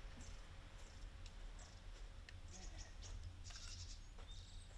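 Small birds chirping faintly, in short high chirps and brief buzzy trills, over a steady low rumble.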